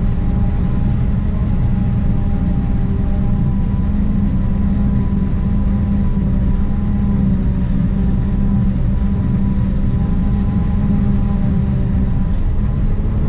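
Self-propelled forage harvester chopping corn, heard from inside the cab: a steady, loud engine and cutterhead drone with a constant higher hum over it.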